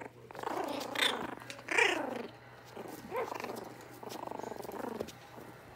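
Yorkshire terrier puppies play-fighting: a run of small growls and high yelps that slide in pitch, the loudest yelp about two seconds in.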